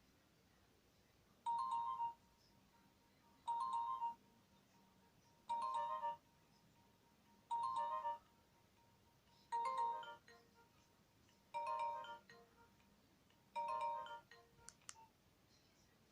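Nokia 2310 ringtone: a short chiming phrase of a few tones, about half a second long, repeated seven times at even two-second intervals.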